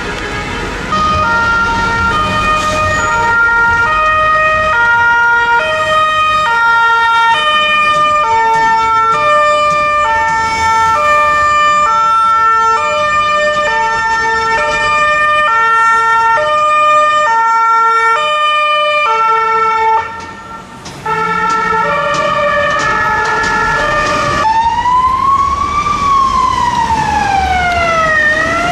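Emergency vehicle siren sounding a two-tone hi-lo, the pitch switching about every half second, breaking off briefly near two-thirds of the way through. A police car's siren then takes over, wailing slowly up and down.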